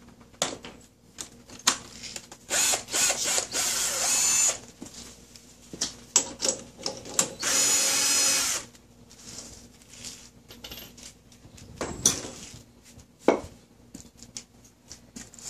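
Cordless drill running in two bursts of a second or two each as it drives bolts into a car's front wheel hub, with short metallic clicks and clanks of tools and parts in between.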